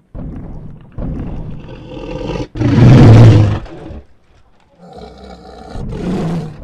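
Tyrannosaurus rex roar sound effect: a series of loud, rough roars, the loudest about three seconds in, with another building near the end.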